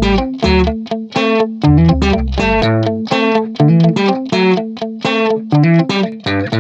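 Background music: a melody of short plucked notes, about two a second, with a low bass line that drops out a little over two seconds in.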